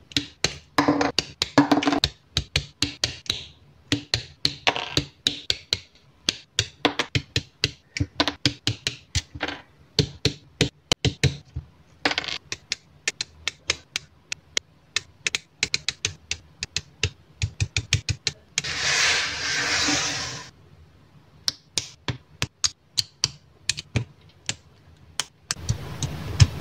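Plastic model kit parts being handled and snapped together: a dense run of sharp clicks and taps, with a few short rustles and a longer scraping rustle of about a second and a half, some nineteen seconds in.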